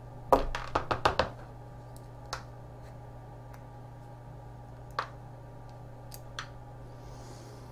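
Sharp clicks and taps of small metal parts being handled as the back panel and its screws come off a cast aluminium distress-beacon case: a quick cluster in the first second or so, then single taps about two, five and six seconds in. A steady low hum runs underneath.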